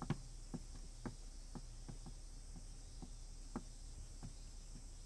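Faint footsteps on a wooden floor, evenly paced at about two steps a second, as a person walks carrying a tea tray.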